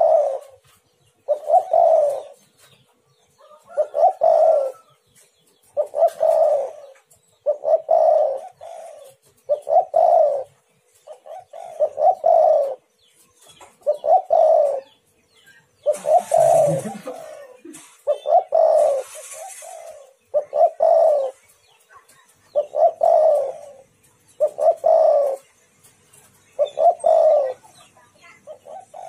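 Spotted dove (tekukur) cooing, a short phrase of several notes repeated about every two seconds. Two brief hissing noises come a little past the middle.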